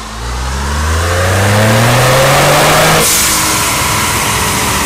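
Ford 3.5 L twin-turbo EcoBoost V6 in a 2014 F150 with upgraded Cavalli turbos, running a full-throttle dyno pull, heard at the exhaust tip: the engine note rises steadily in pitch for about three seconds, then cuts off suddenly with a brief burst of hiss.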